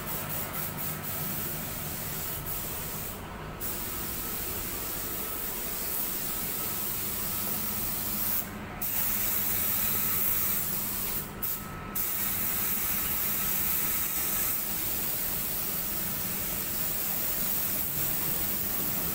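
Air spray gun spraying automotive paint onto a car body: a steady hiss of atomised paint and air, broken by a few short pauses.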